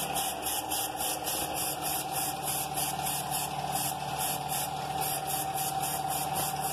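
Air compressor running steadily with a steady whine, under the high hiss of compressed air from a gravity-feed paint spray gun; the hiss pulses rapidly and evenly.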